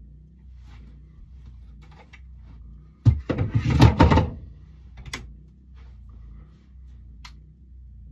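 Loud knocking and scraping for a little over a second, about three seconds in, as a person shifts on a wooden bench and moves his boots on the wooden floor of an ice shack, followed by a couple of faint clicks, over a steady low hum.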